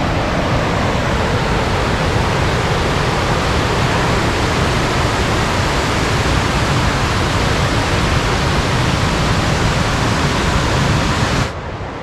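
Steady rushing of a wide river waterfall, white water pouring over rocky cascades and ledges. Near the end it drops suddenly to a fainter, duller rush.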